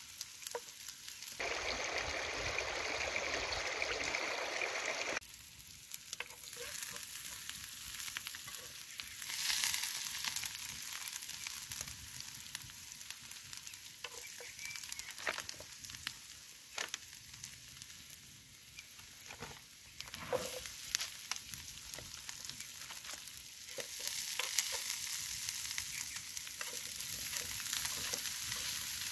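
Chopped onions sizzling in a pan over a wood fire, a steady frying hiss, with the scrape and clicks of a spoon stirring them. For a few seconds near the start a louder rushing noise covers it.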